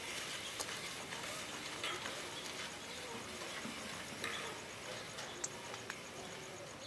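Faint footsteps scuffing on a packed dirt yard with a few scattered light ticks, over a steady background hiss.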